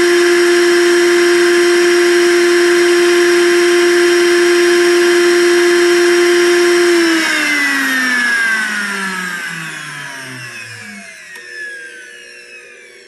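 Blendtec Designer 625 blender motor base running empty with no jar fitted, a steady high whine. About seven seconds in the cycle ends and the motor coasts down, its whine falling in pitch and fading over several seconds.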